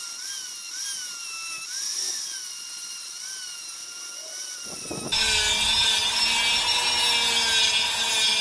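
Foredom flexible-shaft rotary tool spinning a sanding drum against a wooden fish carving. Its whine wavers up and down in pitch as the drum bears on the wood. About five seconds in it turns louder and steadier.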